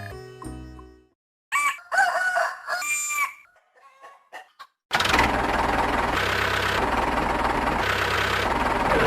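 Background music fading out, then a rooster crowing, then a loud steady running noise with a low hum starting about five seconds in.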